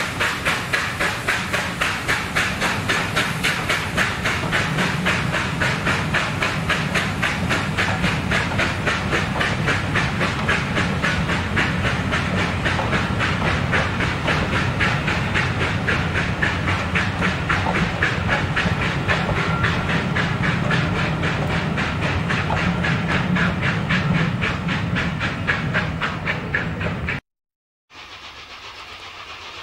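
Steam-hauled train of coaches passing and drawing away, with a fast, even beat that keeps up steadily. It cuts off abruptly near the end, leaving a much quieter outdoor background.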